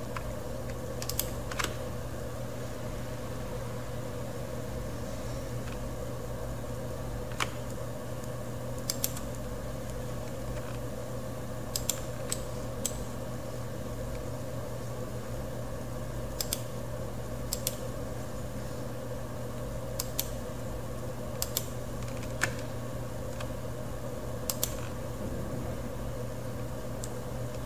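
Computer mouse clicking, about a dozen sharp clicks at irregular spacing, often in close pairs, as the vertices of a spline are placed one by one. A steady background hum runs under the clicks.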